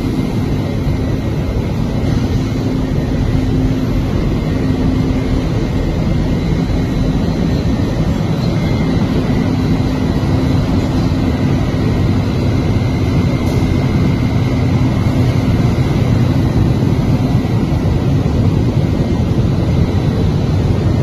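Automotive glass tempering furnace line running: a steady, loud roar of rushing air and machinery with a faint hum underneath.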